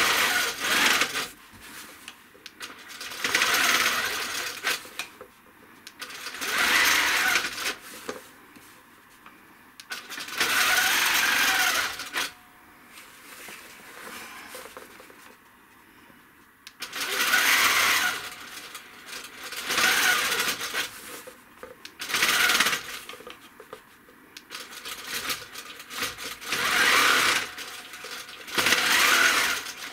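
Handi Quilter longarm quilting machine stitching in short stop-start runs, about a dozen bursts of needle noise with pauses between them, as it sews along a quilting ruler that is moved between runs.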